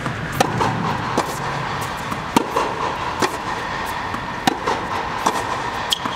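Tennis balls being struck with rackets and bouncing on an indoor hard court: a string of sharp pops, roughly one a second, with fainter ones between, over a steady background noise.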